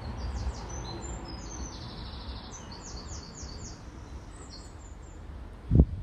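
Small birds chirping in quick runs of high notes over a steady low outdoor rumble, with one dull thump near the end as the loudest sound.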